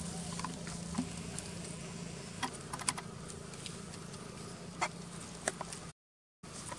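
Scattered light clicks and crackles, a few at a time, over a steady low hum; the sound cuts out completely for about half a second near the end.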